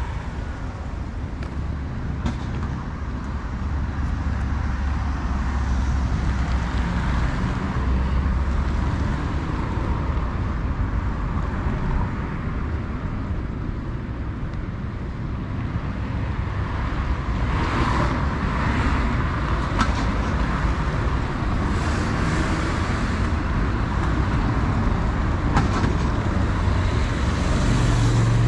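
Road traffic on a city street: cars and motor scooters running and passing on the road alongside, a steady traffic noise that swells as vehicles go by.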